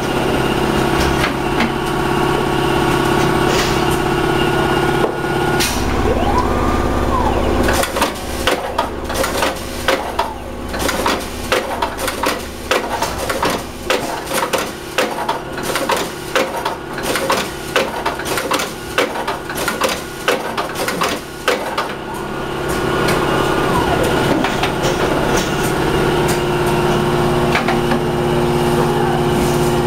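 Frozen-fish cutting machine running, with a steady mechanical hum, held whining tones and a few sliding whines. Between about 8 and 22 seconds in, a rapid, uneven run of sharp knocks and clacks comes as the blades work down through the frozen fish, then the steady hum returns.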